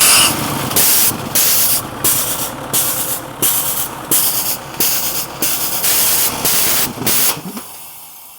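Loud bursts of hissing, about two a second, with low rumbling underneath; they stop about a second before the end.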